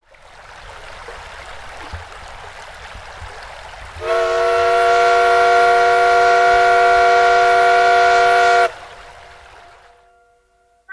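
A steady hiss, then about four seconds in a loud whistle chord of several steady pitches sounds, held for about four and a half seconds before it cuts off and fades away.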